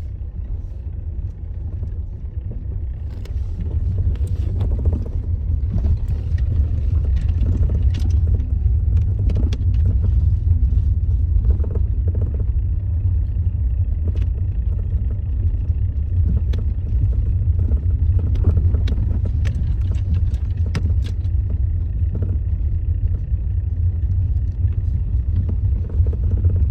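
Lada Granta FL driving, with a steady low rumble and irregular sharp knocks and clicks coming through it: a knock in the suspension.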